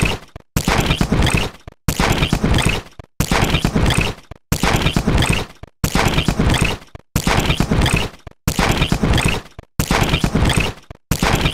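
Tech device glitch sound effect: bursts of crackling, stuttering digital noise, each about a second long and fading out. They repeat about every 1.3 seconds with a short silent gap between them.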